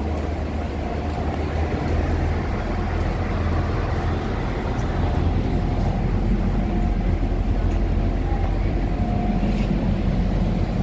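Steady low rumble and hum of a Siemens C651 metro train car running, heard from inside the saloon. A faint whine comes and goes in the second half.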